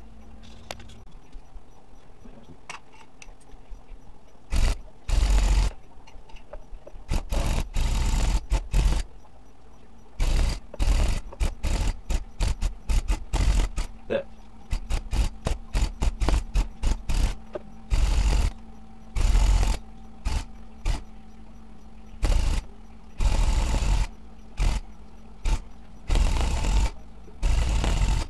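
Electric rug tufting gun punching yarn, run in repeated short trigger bursts of about a quarter second to a second each. It stops and starts throughout, after a quiet first few seconds.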